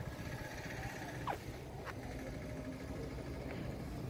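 Town street ambience: a steady low hum of distant traffic and general street noise, with two brief high-pitched sounds between one and two seconds in.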